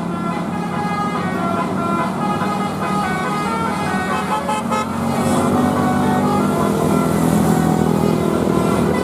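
A tour bus's 'telolet basuri' musical horn playing a quick melody of stepping notes over the steady hum of the bus engine.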